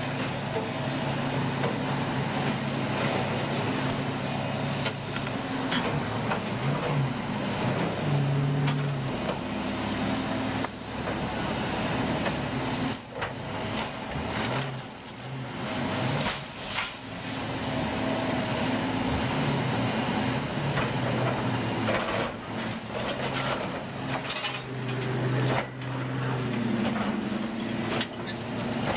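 Hydraulic excavator's diesel engine running throughout, its pitch rising and falling as it works the arm under load. Now and then there are knocks and crunches of brick and timber debris being pulled down.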